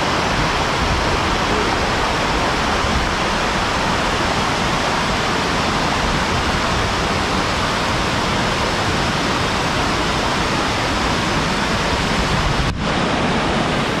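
Waterfall and a rocky mountain river rushing, a steady dense wash of water noise, with a brief dip about a second before the end.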